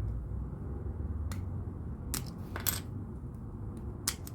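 LEGO plastic bricks clicking and tapping as pieces are handled and pulled apart to be refitted: a few sharp separate clicks, the last two close together near the end, over a steady low hum.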